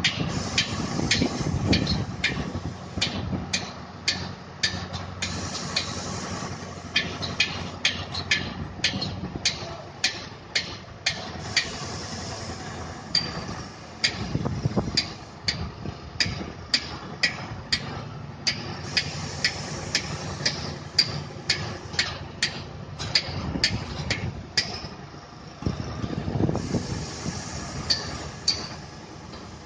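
Truck crane's diesel engine running, swelling louder a few times, under a steady string of sharp knocks, about one or two a second, like hammering.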